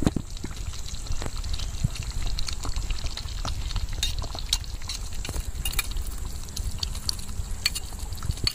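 Tomato gravy simmering in a clay pot over a wood fire while fried paneer cubes are tipped and pushed into it from a steel plate, with scattered clicks and pops over a steady low rumble.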